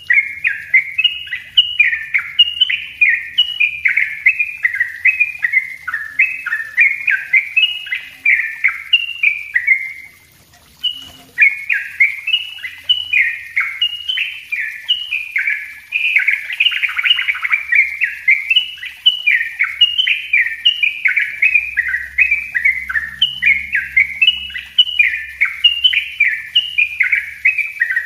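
Caged yellow-vented bulbul (trucuk) singing a dense, rapid, unbroken run of chattering notes (the close-packed "ropel" song), with one brief pause about ten seconds in.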